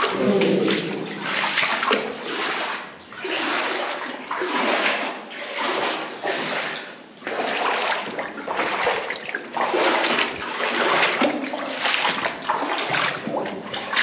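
Feet wading through water in a flooded mine tunnel, splashing and sloshing in a surge with each step, about once a second.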